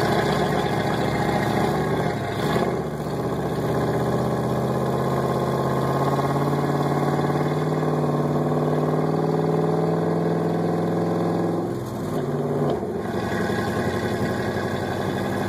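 A vehicle engine running steadily at an even speed, its pitch dipping briefly about two and a half seconds in and again near twelve seconds.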